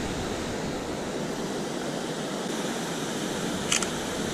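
Steady rush of river water tumbling over a low stone weir, with a brief double click near the end.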